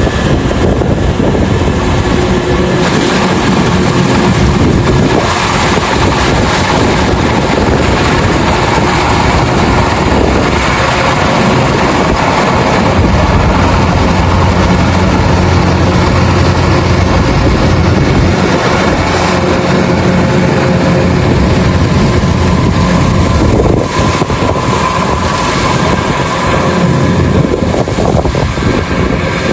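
Rice combine harvester running steadily under load, a loud continuous machine drone with an engine hum and mechanical clatter, dipping briefly near the end.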